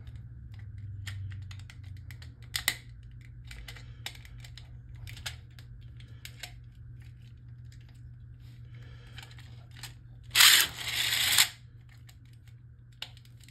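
Small plastic clicks and rattles as Beyblade tops and a launcher are handled and set up, over a steady low hum. About ten seconds in there is a louder burst of noise lasting about a second.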